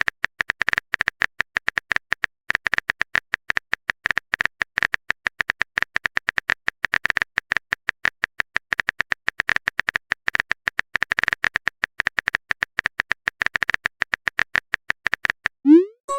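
Smartphone on-screen keyboard typing clicks, a rapid steady stream of short ticks. Near the end they stop and a short rising swoosh follows, the sound of a text message being sent.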